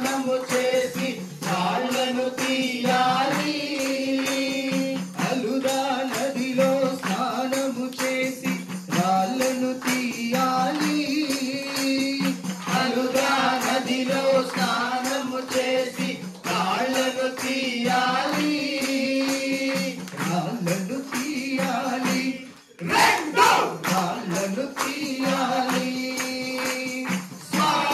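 Devotional bhajan to Ayyappa: singing over a steady held drone, with a tambourine jingling throughout. It breaks off briefly about three-quarters of the way in, then starts again.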